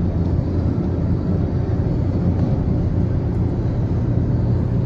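Steady rumble of engine and tyres on the road, heard from inside the cabin of a car driving along a highway.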